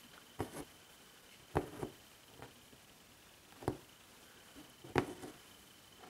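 Embroidery needle piercing the stretched fabric and thread being drawn through: about five soft taps with a little rustle after them, the loudest near the end.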